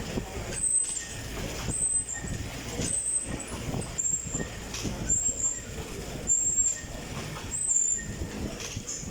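Fan exercise bike being pedaled: a rushing of air from the fan with a short high squeak repeating about once a second.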